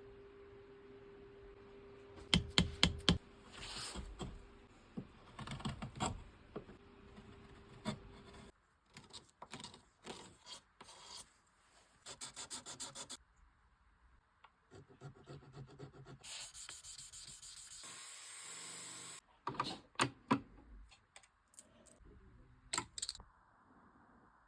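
Hand-tool work on a Fender guitar neck during a truss rod nut replacement: rubbing and scraping broken up by sharp clicks and taps. A faint steady hum runs under the first third, and a few seconds of steady hiss come about two-thirds through.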